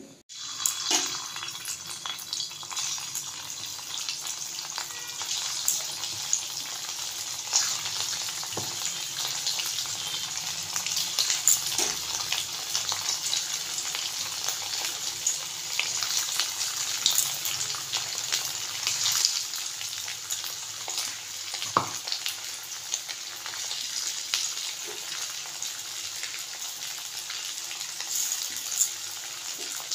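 Cornflour-and-maida-coated chicken pieces deep-frying in hot oil in a kadhai: a steady sizzle full of fine crackles and pops, with a few sharper clicks now and then.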